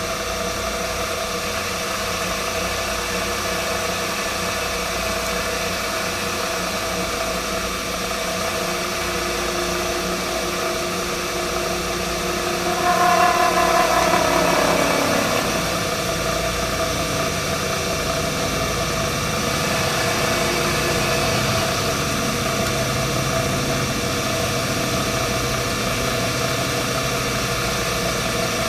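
Vertical milling machine running, its end mill cutting a slot in a steel angle rail: a steady motor and spindle hum with cutting noise. About 13 seconds in, a louder wavering screech lasts for about two seconds.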